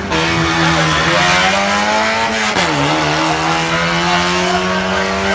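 Car engine accelerating hard down a drag strip, its pitch climbing steadily, with a sharp drop about two and a half seconds in as it shifts up a gear, then climbing again.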